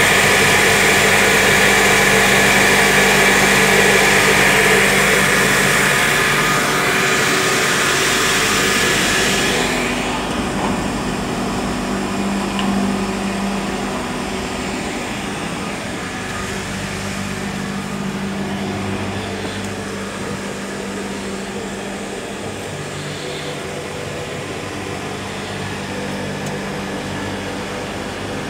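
Cable caterpillar haul-off machine running: its electric motors and cooling fans whir and hum steadily. The loud airy hiss drops away about ten seconds in, leaving a lower, steady hum.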